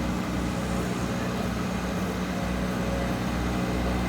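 A road roller's engine running steadily with a low, even hum.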